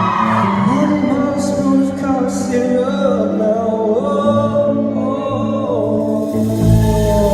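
Live pop-rock song with a male voice singing long, gliding notes over held instrumental chords. A deep bass note comes in near the end.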